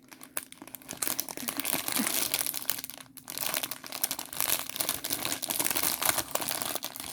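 Small plastic bags of diamond painting drills being handled and sorted, crinkling continuously with a brief pause about three seconds in.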